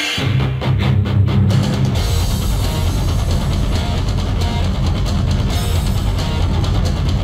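Outro music with drums, a run of sharp drum hits at the start and then a steady beat.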